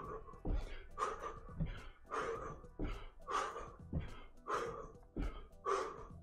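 A man breathing hard in short, sharp breaths about twice a second, in time with side-to-side ski hops, with soft thuds of his feet landing on the floor.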